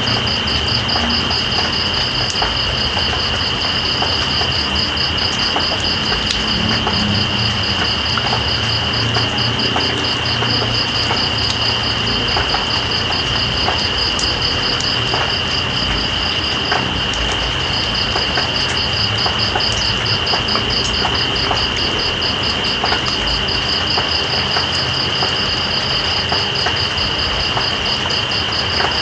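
Night insects trilling steadily: one continuous high trill and another fast-pulsing, higher one that pauses briefly about two-thirds of the way through. Underneath is an even hiss of rain with scattered drip ticks.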